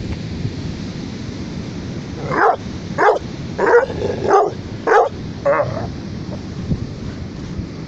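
A dog barking six times in a steady series, about one bark every 0.6 seconds, starting a little over two seconds in, over the rumble of wind on the microphone.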